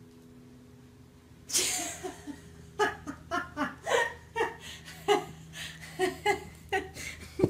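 A person laughing hard in a string of short bursts, starting about a second and a half in and going on to the end.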